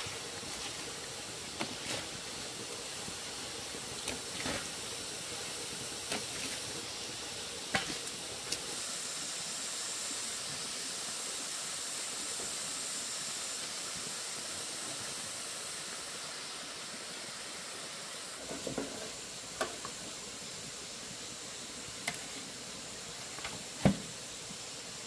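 Steady rush of a stream or waterfall, with sharp knocks every few seconds, the loudest near the end.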